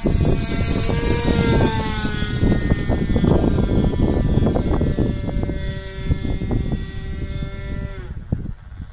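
Radio-controlled model airplane's .61 glow engine running in flight, its note swinging up and down in pitch as the plane manoeuvres, then cutting off sharply near the end. Heavy wind buffeting on the microphone underneath.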